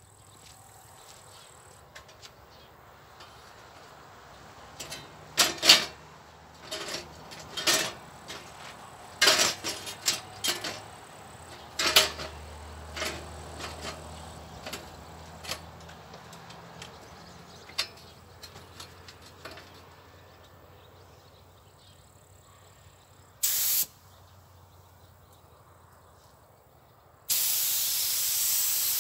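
Irregular sharp knocks and clatter through the first half. Then a pneumatic paint spray gun, set to about 2 bar, gives a short burst of air hiss. Near the end it opens into a steady spraying hiss as painting starts.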